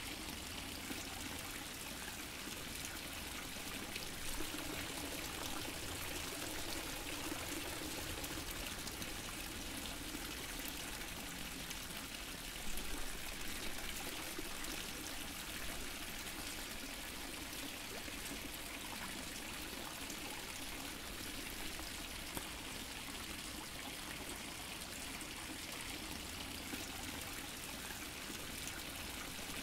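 Water fountain splashing and trickling steadily into water.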